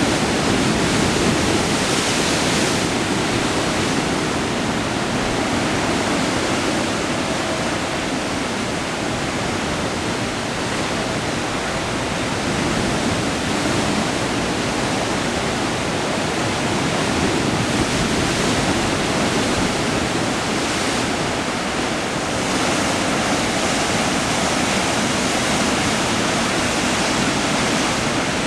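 Waterfall running steadily: a dense, even rush of falling water with slight swells in level.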